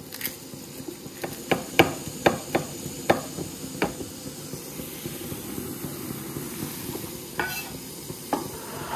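Chef's knife chopping garlic on a wooden cutting board: about six sharp knocks in the first four seconds, over a steady sizzle of frying in the background.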